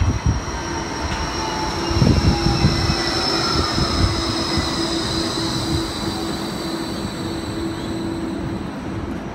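Bombardier Flexity 2 light-rail tram coming into the stop: its electric drive whine falls slowly in pitch as it slows, over a rumble of wheel and rail noise.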